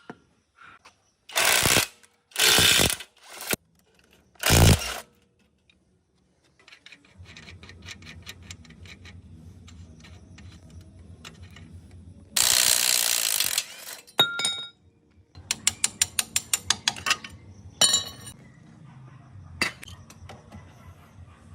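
Hand-tool work on a small motorbike engine: runs of quick ratchet-wrench clicks, with several loud short bursts of metal handling. A low steady hum runs under the second half.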